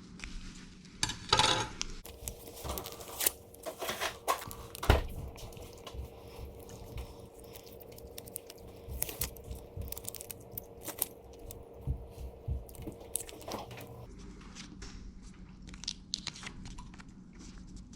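Paper and tape being handled at close range: crinkling, tearing and irregular sharp little taps and clicks.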